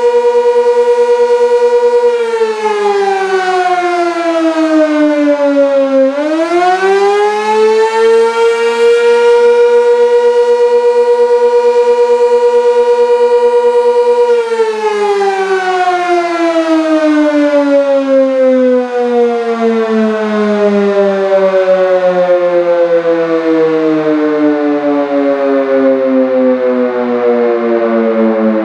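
Sentry 16V1T-B outdoor warning siren sounding the attack signal. Its steady wail drops in pitch about two seconds in, climbs back by about eight seconds, holds, then from about fourteen seconds falls slowly and steadily in pitch.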